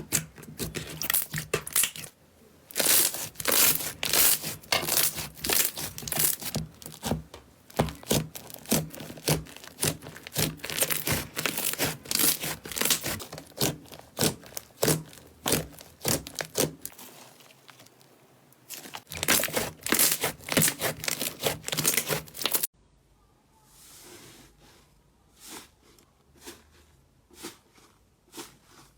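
Slime being squeezed, pressed and stretched by hand: dense runs of sticky crackles and pops. About 23 seconds in it cuts abruptly to a quieter passage with fewer, softer pops.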